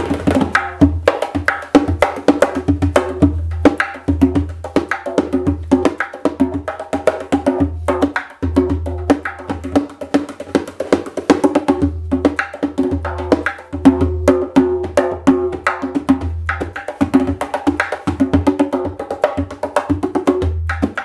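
Dohlla, a bass darbuka, played with both hands in a fast, continuous rhythm. Deep bass strokes every second or two are set among rapid, sharp, dry strokes, and the drum rings between them.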